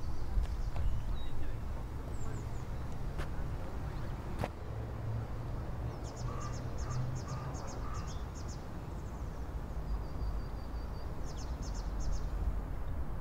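Outdoor ambience: a steady low rumble with small birds chirping, in quick runs of high repeated chirps about six seconds in and again near the end.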